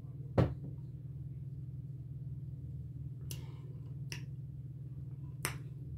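Mouth sounds of someone chewing bacon: a few sharp mouth clicks, the loudest about half a second in and three fainter ones later, over a steady low hum.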